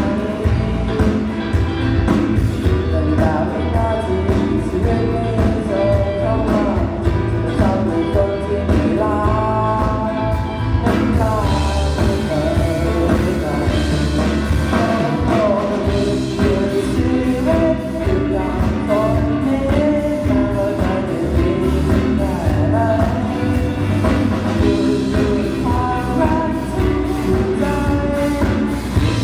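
Song with a singer over drums and bass, played loud through a PA system during a stage sound check.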